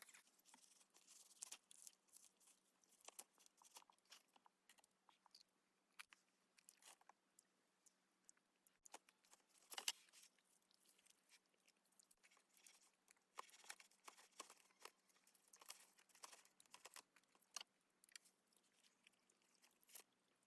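Faint, irregular chewing and crunching of grilled pork, with scattered soft clicks and one sharper click about ten seconds in.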